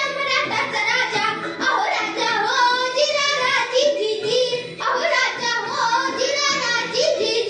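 A young girl singing solo, her voice loud and drawn out in long held notes that rise and fall in pitch.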